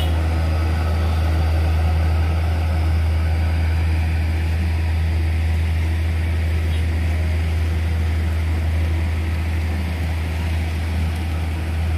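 Vehicle engines running with a steady, deep low drone as motorcycles and cars pass.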